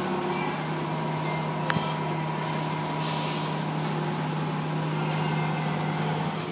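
Automatic car wash running, heard from behind the glass of the bay: a steady machine hum under the hiss of water spraying, with the spray hissing louder about three seconds in.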